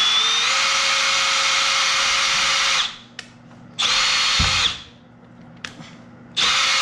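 Cordless drill running in three bursts: one long run of about three seconds, then a short one, and another starting near the end, its motor whine stepping up slightly in pitch early in the first run.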